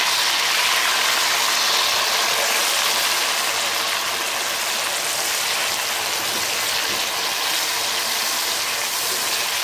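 Chopped tomatoes and green chillies sizzling loudly in hot oil, a steady hiss that eases a little after a few seconds.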